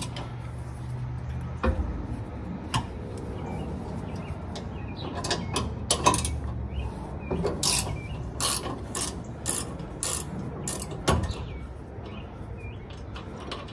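Hand ratchet wrench clicking in short, irregular runs on bolts of a car's transmission, worked from underneath the car, with a few clinks of metal on metal. A low steady hum sits underneath for the first half.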